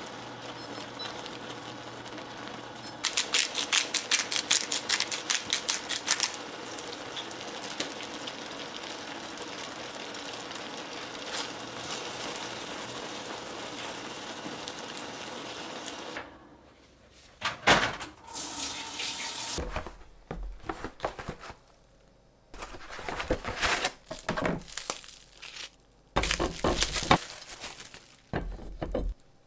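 Mentaiko cream sauce simmering in a frying pan while wooden chopsticks toss the pasta, with a quick rhythmic run of taps against the pan a few seconds in. About halfway through this gives way to bursts of crinkling plastic wrap as a frozen pizza is unwrapped.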